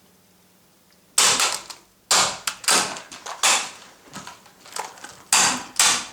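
Plastic shell of a PS3 controller being forced and broken open: a run of loud cracking, crunching noises that start about a second in, each dying away quickly.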